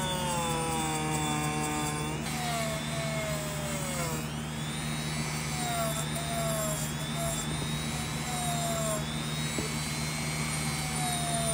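A handheld rotary tool spins a small wire-brush bit against a bare die-cast metal model body, running with a steady low hum and a high whine. Its pitch repeatedly slides down as the bit is pressed onto the metal.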